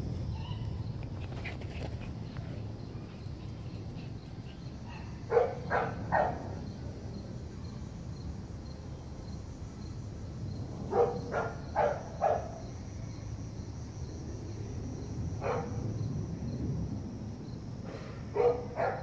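A dog barking in short runs of a few barks, with pauses of several seconds between them, over a steady low rumble.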